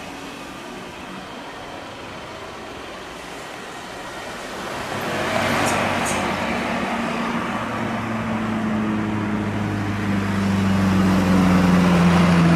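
Jet noise of a Boeing 737-800 climbing away after takeoff, a steady distant rush. About five seconds in it gives way to another Boeing 737-800 on final approach: its CFM56 turbofans drone with a steady low hum and grow louder as the plane nears.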